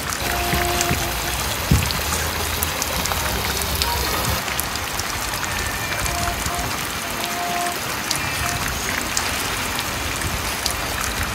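Water splashing and dripping around a rowboat on a pond, a steady patter of small drips and splashes.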